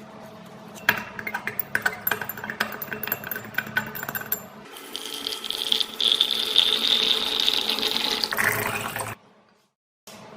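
Tool work on a rusty steel adjustable wrench: a run of rapid scraping clicks, then about halfway a steadier high-pitched grinding whir that cuts off suddenly near the end.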